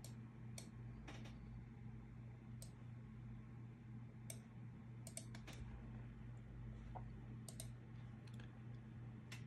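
Computer mouse clicks at irregular intervals, about ten in all, over a steady low hum.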